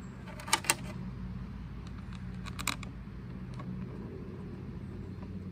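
Sprocket cover and saw chain of a DeWalt pole saw being handled and fitted into place. Two sharp clicks come about half a second in, a few lighter clicks and clinks follow around two and a half seconds, and a steady low hum sits underneath.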